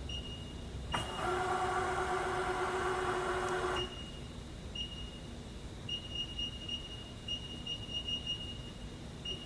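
Webb / SWI 3VH ProtoTrak CNC vertical milling machine: a motor hum with a clear pitch starts with a click about a second in and cuts off abruptly almost three seconds later. After it, a faint high whine comes and goes in short pulses.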